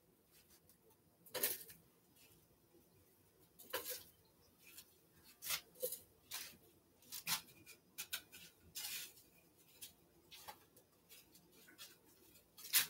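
Faint kitchen handling sounds while breaded cauliflower pieces are moved by hand at the counter: short light clicks, taps and rustles, roughly one a second, with quiet between them.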